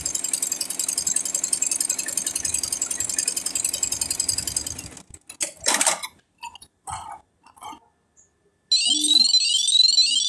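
Single-head computer embroidery machine stitching at speed, a fast even ticking of the needle, which stops about halfway through. A few scattered clicks and knocks follow, then near the end a repeating electronic beep pattern of rising tones, the machine's alert.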